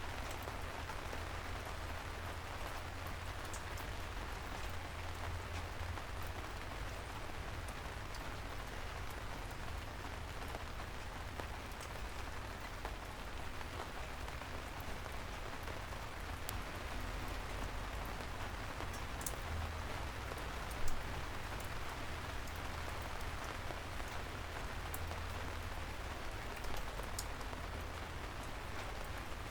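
Steady soft rain falling, with scattered drips ticking through it and a low rumble underneath. One brief louder tap about two-thirds of the way through.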